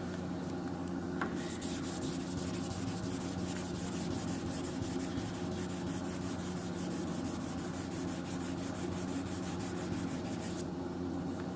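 Hand wet-sanding of automotive clear coat: sandpaper on a pad rubbed back and forth in quick, even strokes, leveling a run in the paint. The strokes start about a second in and stop shortly before the end, over a steady low hum.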